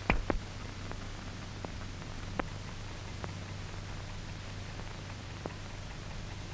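Old film soundtrack noise: steady hiss and a low hum, with scattered irregular clicks and pops. A cluster of louder pops comes right at the start.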